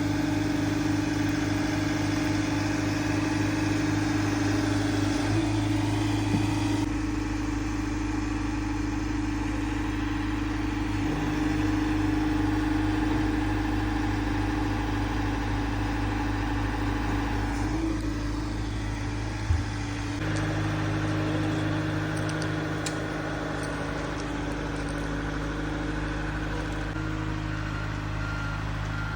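Haul-out lift's engine running steadily, its note shifting a few times as the load or speed changes.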